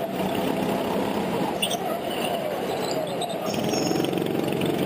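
A motor engine running steadily under loud, even noise, with a few faint voices mixed in.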